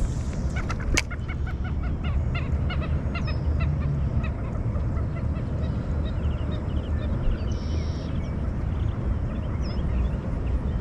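A large bird calling in a run of quick, repeated pitched notes during the first few seconds, over a steady low rumble.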